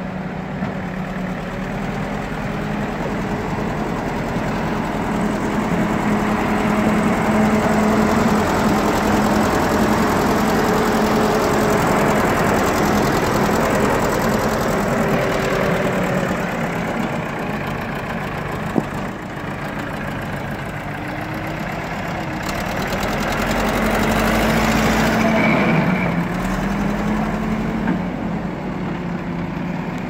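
JCB 3DX backhoe loader's diesel engine running steadily as the machine works and drives, swelling louder under load twice, once through the first half and again near the end. One sharp click cuts through about two-thirds of the way in.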